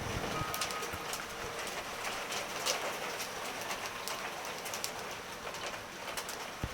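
Heavy rain falling steadily in a thunderstorm, with many individual drops ticking sharply on nearby surfaces.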